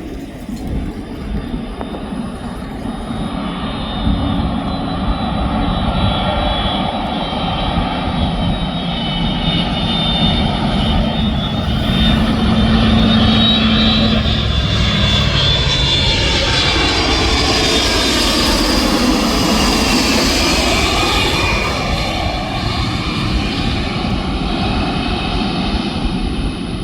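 Boeing 767-300 twin jet landing: its engines grow louder with a high whine as it approaches, pass closest about twenty seconds in with a sweeping change in tone, then ease off a little.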